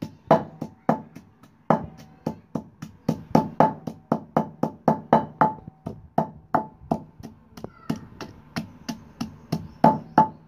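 Wooden pestle pounding garlic and ginger in a clay mortar: a steady run of knocks, about three a second, most of them leaving a short ringing tone from the clay pot.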